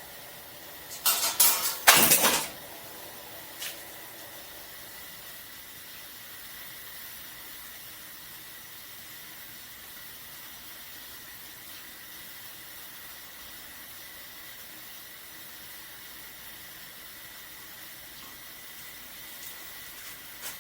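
A few loud clattering knocks in the first couple of seconds, then a steady faint hiss with a thin high whine: a propane sunflower heater burning.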